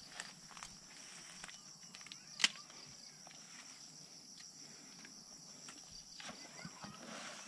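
Steady high-pitched insect chirring, with scattered small clicks and rustles and one sharp click about two and a half seconds in.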